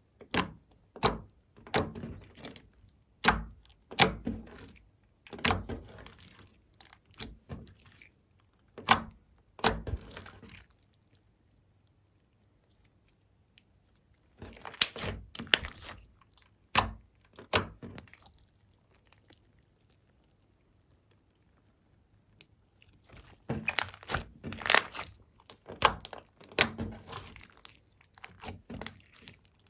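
Slime being squeezed and poked by hand, giving sharp clicking and popping sounds with short crackly tails, in clusters with silent pauses around the middle.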